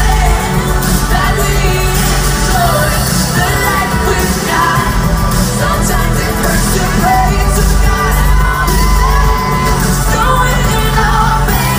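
Live pop music over a concert sound system, with heavy sustained bass and singing, heard loud from within the audience.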